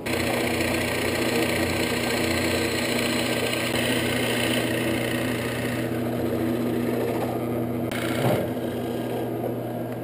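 Rikon drill press running, its Forstner bit boring holes in a poplar board: a steady motor hum under the rough noise of the bit cutting into the wood.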